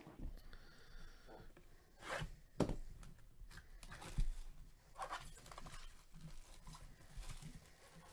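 Gloved hands opening a cardboard trading-card box: faint scraping, rustling and tearing of the packaging, in scattered short bursts.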